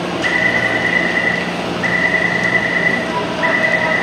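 Metro door-closing warning: three long, high electronic beeps, each a little over a second, over crowd chatter and a steady low hum.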